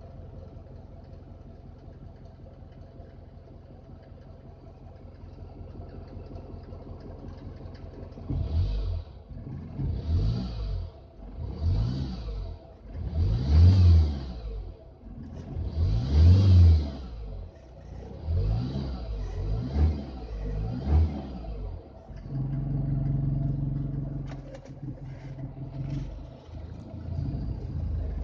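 Mercedes-Benz Vito W638 engine idling, then blipped about seven times in quick succession, held briefly at a higher speed, and let back to idle. A faint high steady whistle runs under it, which the owner cannot explain.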